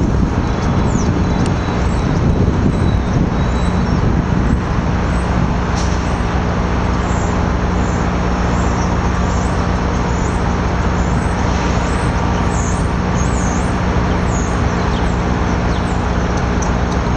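Amtrak Downeaster passenger train rolling slowly over switches with a steady low diesel drone. From about six seconds to fifteen seconds in, a run of short, high-pitched wheel squeals sounds over the drone.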